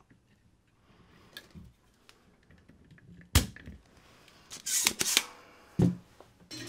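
Vacuum solder removal tool clearing solder from a joint on a circuit board: one sharp snap a little over three seconds in, then a short hiss and a few small clicks and a knock.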